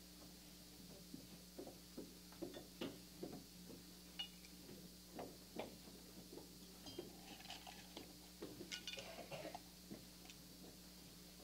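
Faint, irregular footsteps, shuffles and small clicks and taps of people walking in line, over a steady low hum.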